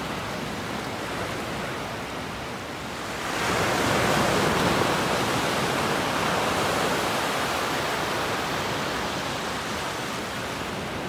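Small ocean waves breaking and washing up onto a sandy beach, a steady rushing surf that swells louder about three and a half seconds in, then slowly eases off.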